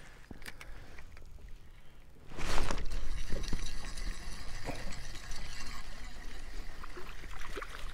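Water splashing and sloshing as a small fish is hooked and reeled in to a kayak on a spinning rod. A sudden loud rush about two and a half seconds in is followed by steady splashing.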